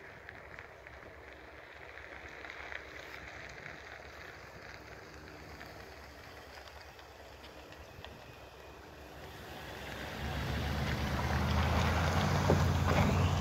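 Low background hiss, then about ten seconds in a pickup truck drives past close by, its engine and tyres growing loud and peaking near the end.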